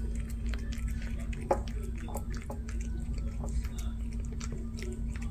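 Norwegian Forest Cat chewing wet cat food eagerly: a quick, irregular run of small wet clicks and smacks over a steady low room hum.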